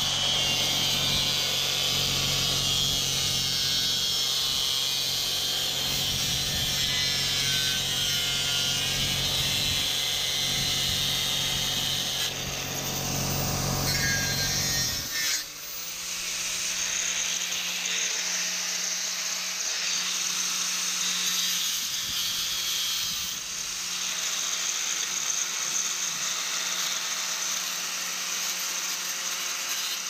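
Angle grinder running steadily as it cuts into a bicycle's rear fender. About halfway through the sound changes: the deep rumble drops away and a steady, higher hum remains.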